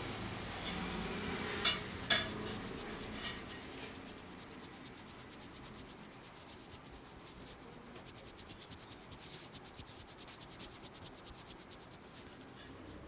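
Hands rubbing briskly over hair and scalp in a barber's head massage. There are a few sharp clicks around two seconds in, then fast, even rubbing strokes in the second half.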